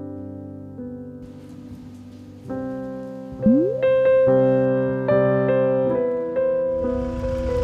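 Background piano music playing gently, with a quick rising glide effect about three and a half seconds in. A rough noise rises under the music near the end.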